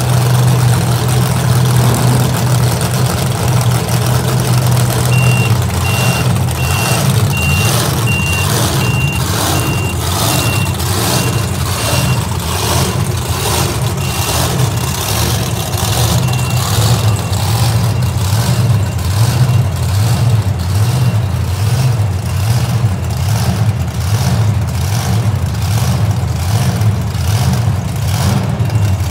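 Monster truck engine running at idle with a steady low drone. About five seconds in, a series of high, evenly spaced electronic beeps like a reversing alarm joins it, fades away over the next ten seconds or so, and returns faintly near the end.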